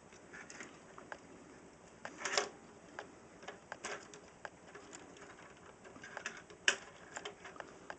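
Hard plastic parts of a Voyager class Optimus Prime Transformers figure clicking and rattling as they are handled and folded during transformation: scattered small clicks, with one sharper click late on.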